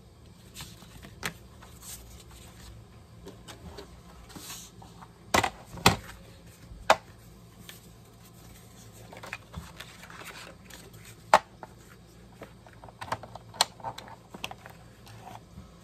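Papers and a plastic paper trimmer being handled on a cutting mat: scattered clicks and knocks with light paper rustling, the loudest a few sharp knocks about five to seven seconds in and another near eleven seconds.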